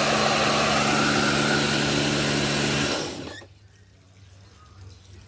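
Kärcher K2 electric pressure washer running loud and steady, then cutting out about three seconds in and winding down.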